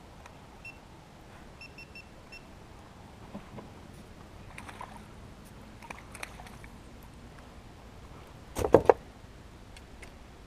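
A few short electronic camera beeps. Then a hooked crappie splashes at the surface as it is reeled in, and near the end comes a quick burst of loud knocks against the small boat as the fish is swung aboard.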